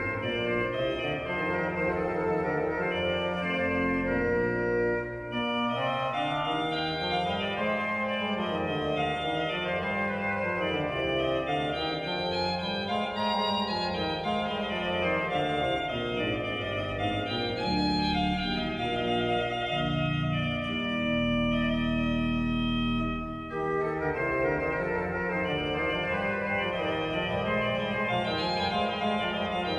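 Koenig pipe organ playing French Baroque organ music in several interwoven voices over a moving bass line. The music breaks briefly about five seconds in, and again about three-quarters of the way through after a long held low chord, then carries on.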